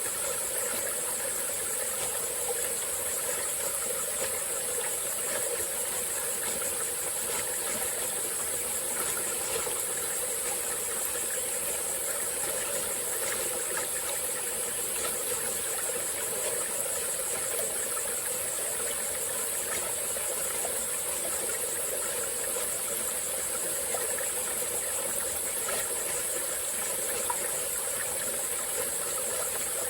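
Small tropical forest stream flowing steadily, with a continuous high-pitched drone of insects over the water.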